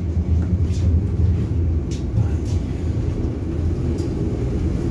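Inside the carriage of an FGC class 115 electric train: a steady low rumble of the running train, with a few sharp clicks through it.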